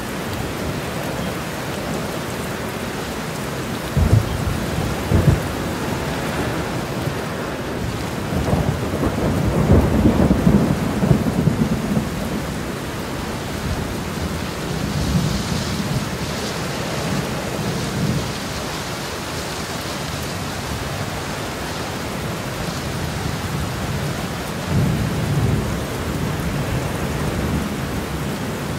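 Steady rain in a thunderstorm, with thunder: two sharp low cracks about four and five seconds in, a long rolling rumble around ten seconds, and further low rumbles later on.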